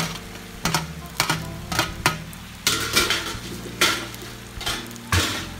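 Wooden spoon and wire strainer knocking and scraping against a metal cooking pan as vegetables are tipped in and stirred through pasta: irregular clatters about twice a second, over a low frying sizzle.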